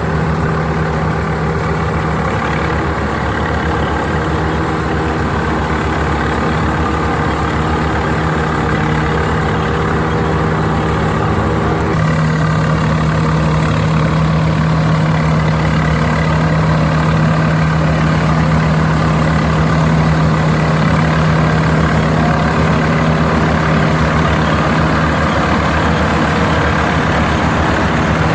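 Combine harvester running steadily with a constant engine and machinery hum; about twelve seconds in the tone shifts slightly and it gets a little louder.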